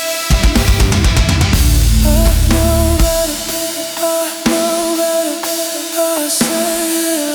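Instrumental passage of an alternative metal song: drum kit and guitars with a long held melody note. The heavy low end drops out about three seconds in, leaving the held notes over spaced drum hits.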